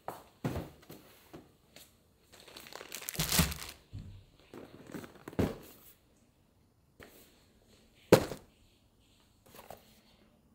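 Boxes and plastic packaging handled and set down on a wooden table: a series of knocks and thuds, a stretch of crinkling packaging about two to four seconds in, and a sharp knock a little after eight seconds.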